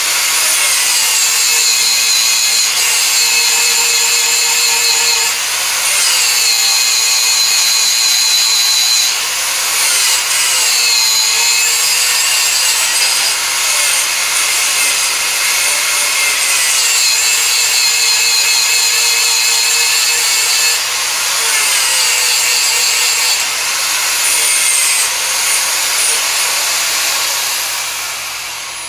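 Electric angle grinder running with its abrasive disc on the steel jaws of a pair of blacksmith tongs, grinding the jaw edges flush. Its high whine dips in pitch each time the disc is pressed into the steel, and the grinder winds down near the end.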